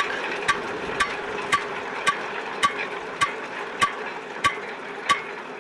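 Wirax 1.65 drum mower's cutting drums coasting down, a sharp metallic tick once per turn. The ticks come just under two a second and slowly spread apart as the drums lose speed, over a steady mechanical hum.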